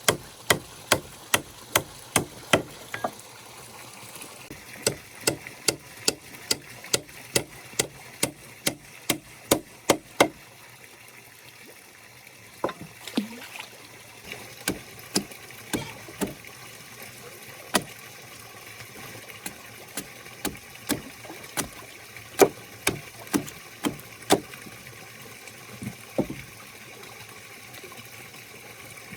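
Repeated sharp chopping strokes into wood, about two a second in steady runs at first, then slower and more irregular after a short pause.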